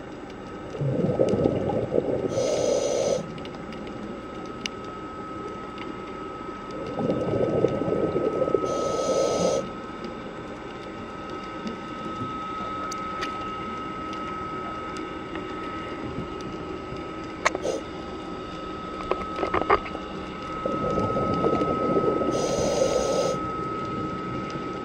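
Scuba diver breathing underwater through a regulator: three long bursts of bubbling, crackling exhalation, each a couple of seconds long and ending in a brief hiss. Under them runs a steady high hum, with a few sharp clicks in the pauses.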